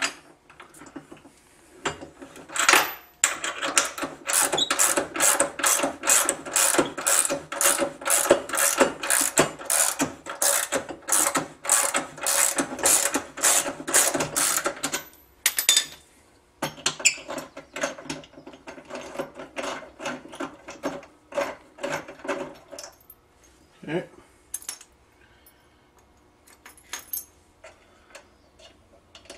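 Ratchet wrench clicking in quick, even strokes for about twelve seconds, then in shorter, sparser runs, as a bolt is backed out of a boat's jack plate.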